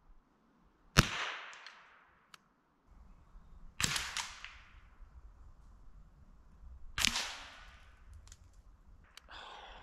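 Three rifle shots, about three seconds apart, each trailing off in an echo.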